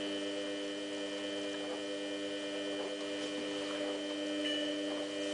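Samsung WF8804RPA washing machine giving off a steady electrical hum at mains pitch, a buzz with many overtones, while it fails to let water in.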